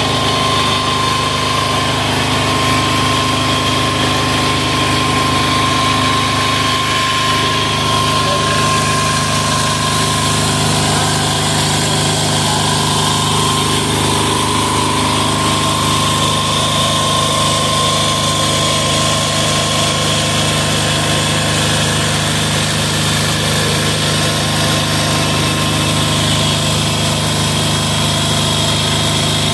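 186FA single-cylinder air-cooled diesel engine running steadily, fed 10W-30 synthetic-blend motor oil as its fuel.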